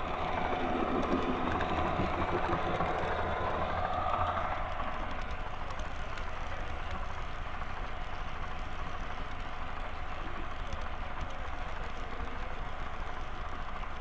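Model train running along the layout track, a steady mechanical running noise from the locomotive and wheels on the rails. It is a little louder for the first four seconds or so as the train comes through a tunnel, then runs on evenly.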